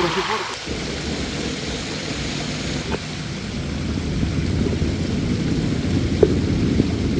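Muffled, low rushing of stream water heard by a submerged camera, steady throughout, with a couple of faint knocks.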